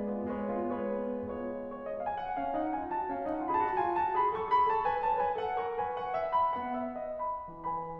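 Piano playing classical music: held low notes, then a phrase that climbs to a high point about halfway through and works back down.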